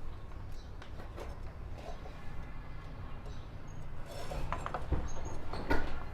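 Scattered light clicks and knocks of metal parts being handled as a motorcycle front wheel and its spacers are fitted into the fork, growing busier and louder about four seconds in. A steady low hum runs underneath.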